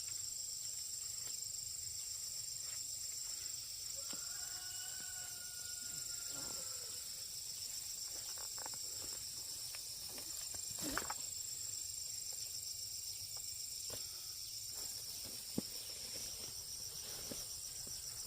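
Steady, high-pitched chorus of insects, with scattered light clicks and knocks, one sharper knock about 11 seconds in. A faint, drawn-out pitched call sounds from about 4 to 7 seconds in.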